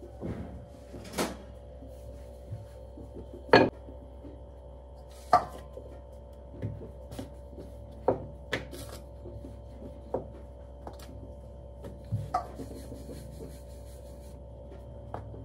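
Rolling out roti dough with a wooden rolling pin on a board, with scattered knocks and clinks of kitchen utensils; the loudest knock comes about three and a half seconds in. A steady low hum runs underneath.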